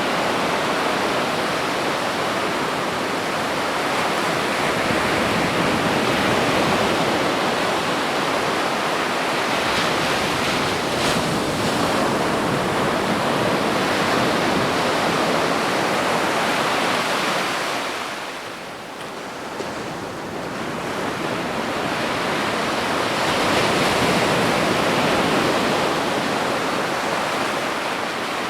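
Ocean surf breaking on a beach: a continuous wash of water noise that swells and ebbs slowly. It dies down for a couple of seconds about two-thirds of the way through, then builds again as the next wave comes in.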